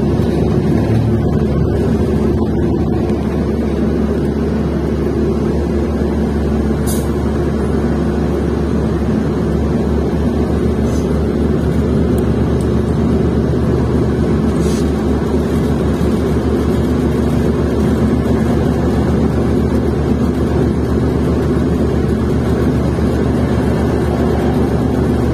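New Flyer XN40 city bus with its Cummins Westport ISL-G natural-gas inline-six engine running steadily. Two short high ticks come through, one about a quarter of the way in and one just past halfway.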